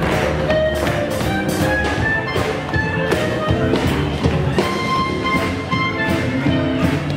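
Swing jazz band playing an up-tempo dance tune, with a steady beat under held horn and instrument notes.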